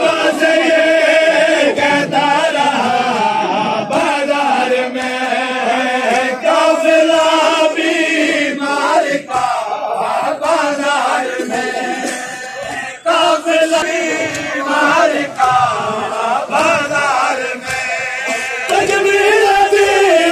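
A group of men chanting a noha lament in unison, with slaps of hands on bare chests (matam) struck through the chant.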